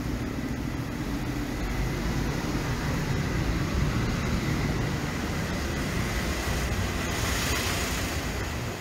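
City street traffic noise: a steady low rumble of vehicles, with a hiss that swells briefly near the end.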